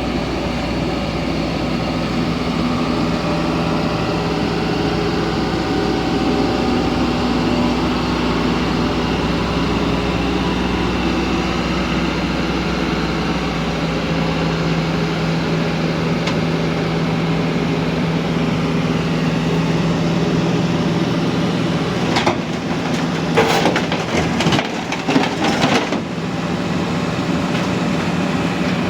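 Kobelco excavator's diesel engine running steadily, with a cluster of clanks and knocks near the end.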